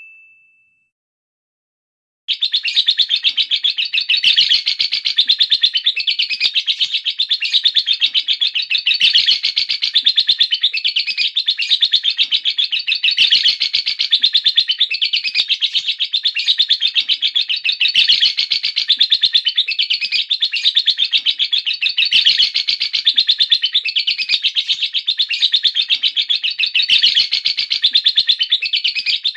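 Lovebird's ngekek: a long, unbroken run of rapid, shrill chattering that starts about two seconds in and goes on without a pause, swelling and easing every couple of seconds. This long continuous ngekek is the song fanciers train contest lovebirds to give.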